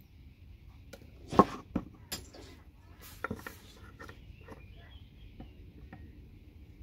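Small hard parts clicking and clattering as gold-plated connector pins and plastic casings are worked out of a network patch panel by hand. The loudest knock comes about a second and a half in, a few more follow over the next two seconds, then lighter ticks.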